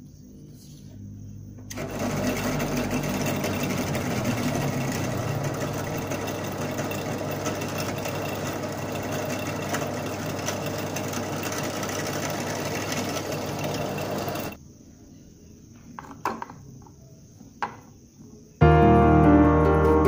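Benchtop drill press running, its bit boring into a wooden stick: a steady grinding whir for about thirteen seconds that stops suddenly, followed by a couple of small knocks. Piano music comes in near the end, louder than the drilling.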